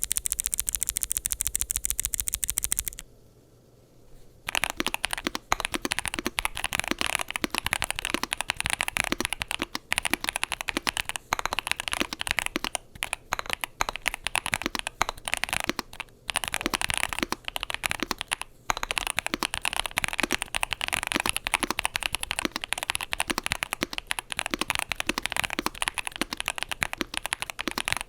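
Fast typing on a Yunzii AL65 aluminium-case, gasket-mounted mechanical keyboard with Gateron Zero linear switches and PBT double-shot keycaps: a dense run of key clacks with a few brief pauses. The typing starts about four seconds in, after about three seconds of rapid, very even ticking and a short quiet pause.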